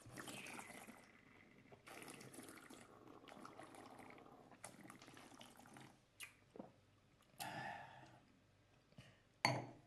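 Wine tasters slurping white wine, drawing air through it in the mouth to aerate it: faint, airy, hissing sips, several in a row, with a short sharp sound near the end.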